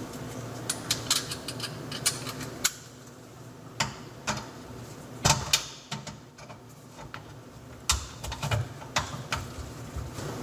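Screwdriver undoing screws on an old garbage disposal under a sink: scattered small metallic clicks and ticks at uneven spacing, with a few louder knocks, over a steady low hum.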